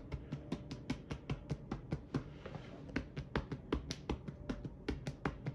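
Tapotement: fingers rapidly tapping on a person's upper back, about five or six light taps a second. The percussion is meant to send a vibration into the lung to loosen phlegm.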